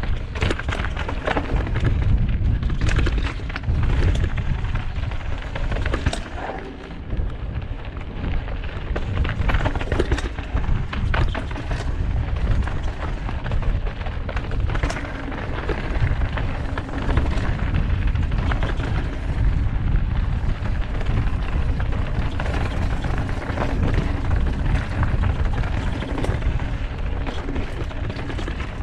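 Wind buffeting the camera microphone with a heavy low rumble, over the rattle and sharp knocks of a mountain bike riding fast down a rocky dirt trail, its tyres hitting rock and loose stones.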